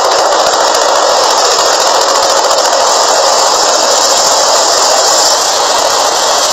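Tandem-rotor military helicopter hovering low over water: a loud, steady rush of engine and rotor noise.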